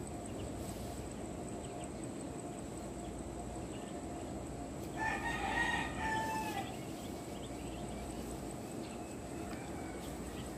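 A rooster crows once, about five seconds in, a call of about a second and a half, over steady background noise.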